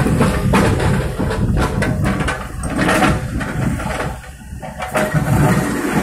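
Diesel engines of a SANY excavator and a Hino 300 dump truck running, with scattered knocks and scrapes as the excavator bucket digs into rock and soil.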